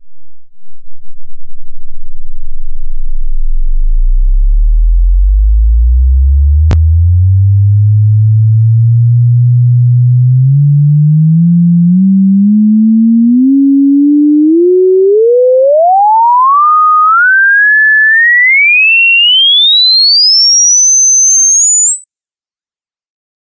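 Pure sine-wave test tone sweeping upward in pitch, from a deep hum below 50 Hz through the midrange to a thin whistle above 16 kHz. It climbs slowly through the low end, then faster, in small steps, and cuts off suddenly near the end.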